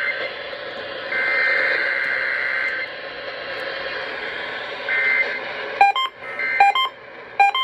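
Emergency Alert System SAME header over the radio: a harsh two-tone data burst about a second in, lasting under two seconds, and a shorter one near five seconds. From about six seconds, pairs of short electronic beeps repeat a little under a second apart.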